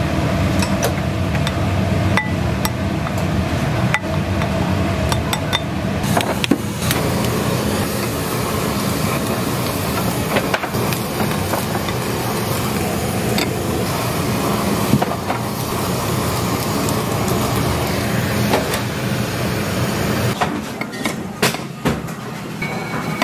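Steady low rumble of a working restaurant kitchen, with clinks and taps of a rice paddle and metal tongs against ceramic bowls as rice is scooped and chashu pork slices are laid on. The rumble drops away near the end, leaving sharper clicks of the tongs.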